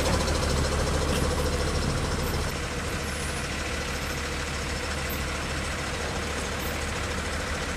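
Tow truck's engine idling with a steady low drone, dropping slightly in level about two and a half seconds in.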